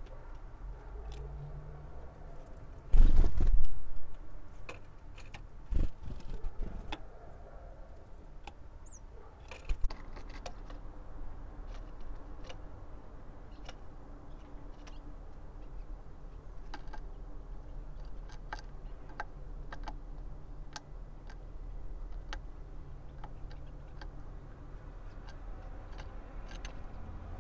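Great tit pecking seed in a wooden feeder tray: scattered sharp taps and clicks. A loud rustling rumble lasts about a second, about three seconds in.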